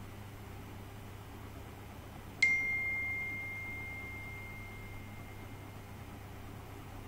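A single bell-like ding about two and a half seconds in: one clear, bright tone struck once that rings away over about three seconds, over a faint steady hum.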